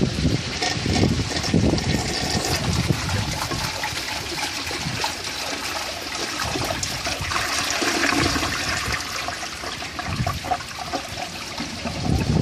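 A 1995 Gerber Mt. Vernon toilet flushing: a steady rush of water through the bowl and tank.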